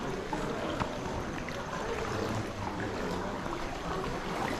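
Water lapping and splashing around a kayak being paddled, over a steady rush of background noise with scattered small splashes and clicks.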